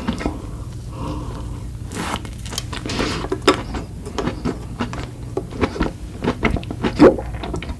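Close-miked eating: biting and chewing sweet desserts, with irregular wet mouth clicks and crackles and a louder bite near the end.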